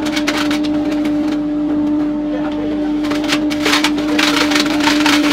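CNC router spindle running with a steady whine while its bit carves a wooden door panel, with irregular crackling from the cut.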